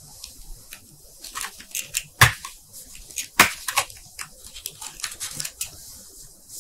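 Clicking and crackling of small green seed-pot pieces being snapped apart and pressed into a card holder, with two louder snaps about two and three and a half seconds in.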